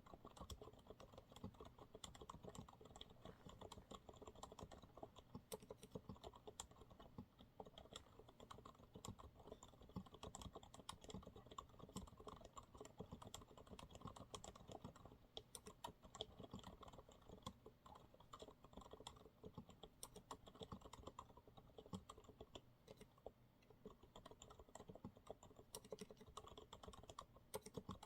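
Continuous typing on a Monsgeek MG108W keyboard with TTC silent brown switches: a dense, steady run of quiet, muted keystrokes.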